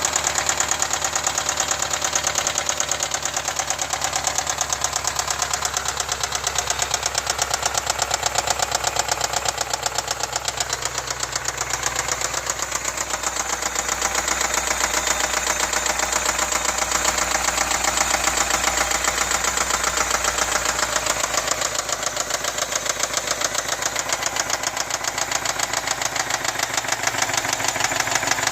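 2010 BMW X5 4.8i's N62 4.8-litre V8 running with a steady, fast, even knocking from the engine, a noise whose cause the owner has not identified.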